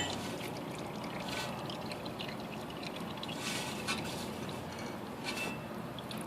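Engine oil trickling steadily into a drain pan as a Kawasaki ZXR750's oil filter drains, with a faint knock about four seconds in.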